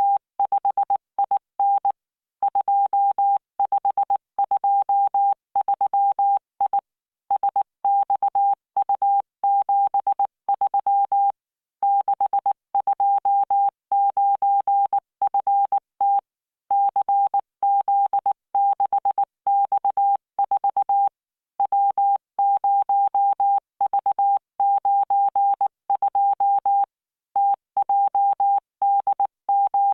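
Computer-generated Morse code from the LearningMorse training software, sent at 19 words per minute: a single steady beep keyed on and off in short dots and longer dashes, with brief gaps between letters and longer pauses between words.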